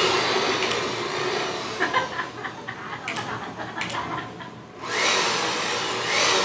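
Handheld electric blower running as a wind machine, a steady rush of air. It dies away about four and a half seconds in, then starts up again just before five seconds.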